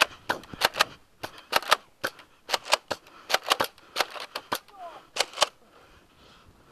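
Nerf foam-dart blasters being primed and fired: a string of sharp plastic clacks, most of them in quick pairs about a second apart.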